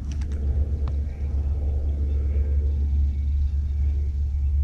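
Steady low wind rumble on the microphone, with a few light clicks in the first second.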